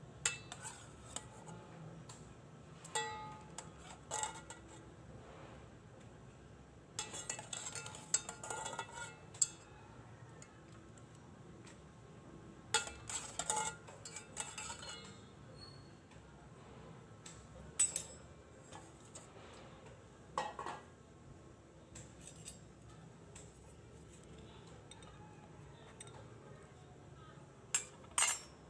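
Light clinks and scrapes of a metal kitchen utensil against a plate as boiled potato and carrot pieces are set down, coming in short clusters every few seconds.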